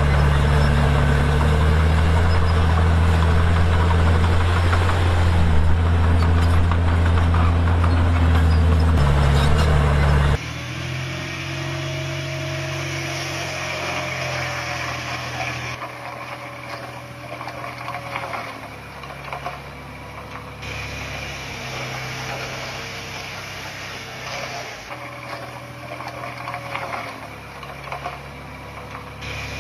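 Bulldozer's diesel engine running, its pitch shifting up and down as it works. About ten seconds in the sound cuts abruptly to a quieter engine with slow rises and falls in pitch.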